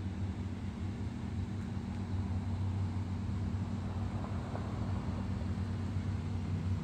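A steady, low mechanical hum from a running motor, unchanging throughout.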